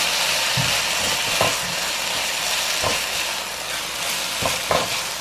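Rice and kimchi sizzling steadily in a hot pan while being stir-fried, with a utensil knocking against the pan about five times.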